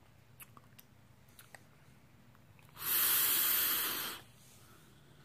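A vape draw: air hissing steadily through a rebuildable tank atomizer firing at 58 watts for about a second and a half, starting about three seconds in. A few faint ticks from handling the device come before it.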